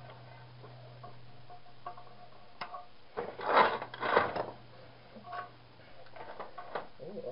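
Hand-dismantling of a scrap TV: light clicks and taps of tools and parts over a steady low hum. Just after the middle come two louder noisy clattering bursts about half a second apart.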